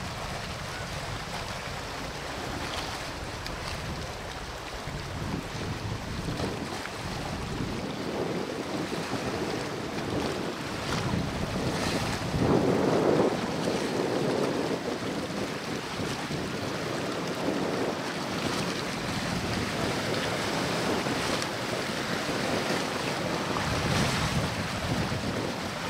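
Wind rushing over the microphone with a steady wash of water, gusting louder about halfway through.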